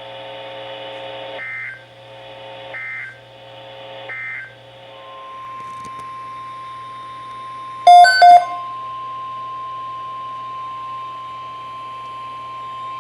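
NOAA Weather Radio EAS end-of-message signal: three short two-tone data bursts about a second and a half apart over a buzzing hum. Then a steady alert tone starts and holds, announcing the next message. About eight seconds in, two very loud short beeps sound over the tone.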